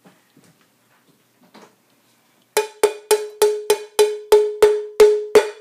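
A flower-patterned ceramic bowl struck sharply on its bottom again and again, about three blows a second starting some two and a half seconds in, each blow ringing briefly at the same pitch: knocking drained pasta loose from the bowl.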